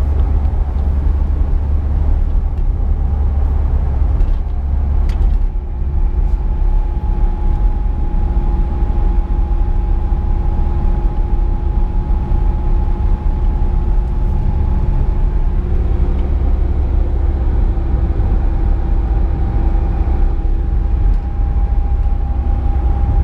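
Cabin sound of a 1998 VW Jetta TDI's 1.9-litre four-cylinder turbo diesel cruising at about 2,000 rpm, a steady low rumble with road noise. A faint steady whine comes in for much of the time.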